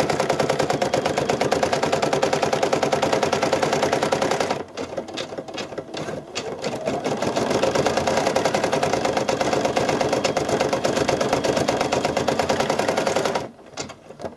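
Brother PE-700 embroidery machine stitching a design, its needle running in a fast, even rhythm. About four and a half seconds in it drops to lighter, scattered clicking for a couple of seconds, then resumes stitching and stops again near the end.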